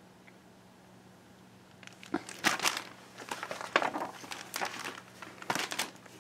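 Low room noise for about two seconds, then a run of crinkling and rustling as a hardcover picture book is closed and turned over to its back cover.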